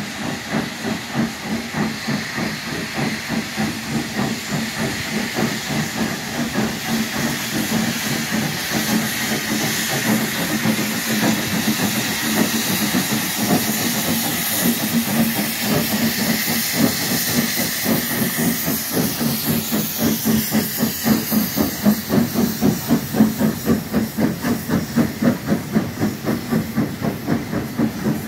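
Two steam locomotives double-heading a train as it pulls away, with a loud hiss of steam and a steady rhythm of exhaust chuffs that grows louder as the engines pass close by. Near the end the coaches roll past.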